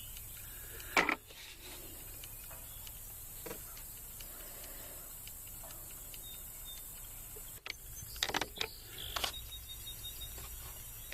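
Air rifle firing once, a single sharp report about a second in, followed near the end by a few quick mechanical clicks and knocks.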